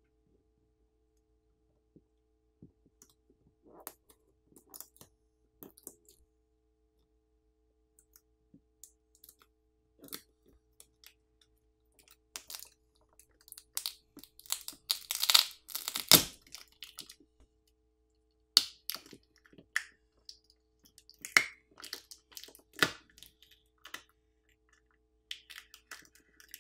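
Small phone parts being worked with hand tools during disassembly: scattered clicks, crackles and taps. A denser run of crackling comes about two-thirds of the way through, and there are sharp knocks about 16 and 23 seconds in.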